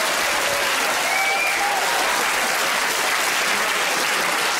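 Large theatre audience applauding steadily, many hands clapping together.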